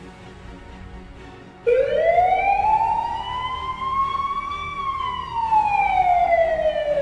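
A single siren wail starts suddenly about a second and a half in, rises slowly over about three seconds, then falls back in pitch.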